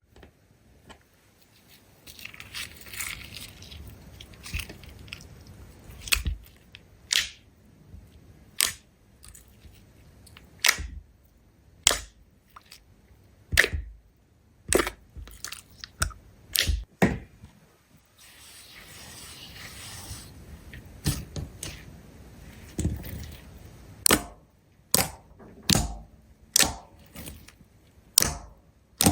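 Slime being pressed and poked, giving a string of sharp pops and clicks about once a second, with two stretches of soft crackling in between.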